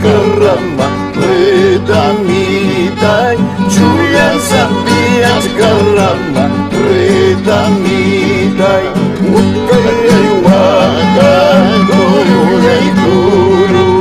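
Andean folk tune played live on a violin and two acoustic guitars. The violin carries a wavering melody over the guitars' steady plucked accompaniment.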